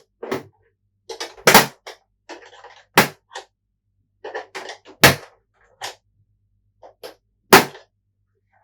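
Plastic clips of a PS4 Pro's casing snapping loose one after another as a metal spudger pries them. There are four loud sharp snaps a second or two apart, with smaller clicks and some scraping between.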